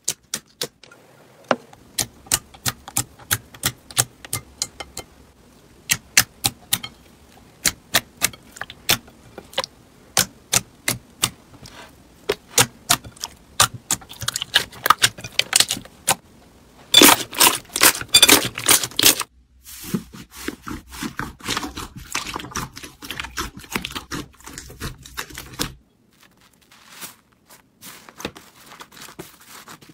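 Hands squishing and stretching glossy slime, making a series of sharp clicks and pops as air pockets burst. The clicks thicken into a dense, loud crackle about two-thirds of the way through. Near the end it turns to softer, sparser crackling as a foam-bead slime is squeezed.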